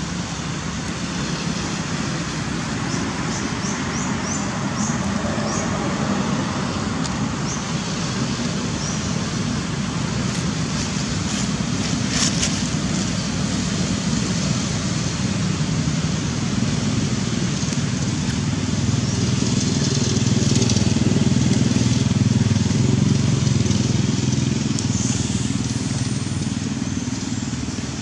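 Steady road-traffic noise with a low engine rumble that grows louder from about twenty seconds in, then eases off. A few faint, short high chirps come early on top of it.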